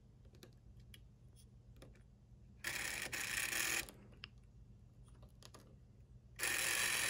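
Small electric motor of a vintage Bowser model steam locomotive trying to run on the track: light scattered clicks, a buzz of about a second about three seconds in, then the motor starts whirring steadily near the end. The stop-start running is the sign of intermittent power, which the owner puts down to a bad connection.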